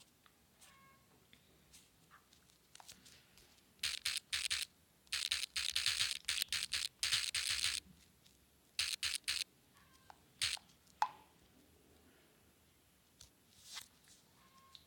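Scratchy rustling noise in a run of short bursts, starting about four seconds in and ending around eight seconds, with a few more bursts near nine and eleven seconds.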